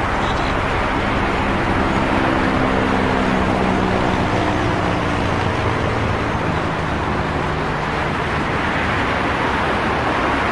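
Steady highway traffic: a continuous rush of tyres and engines from passing vehicles. A couple of seconds in, a larger vehicle's engine hum stands out, its pitch sinking slightly as it goes by, and it fades out after about eight seconds.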